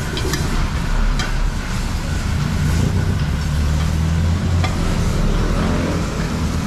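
Porterhouse steak sizzling hard on a cast-iron sizzling plate as the fat flares up in big flames, over a steady low rumble. A few sharp metallic clicks from tongs.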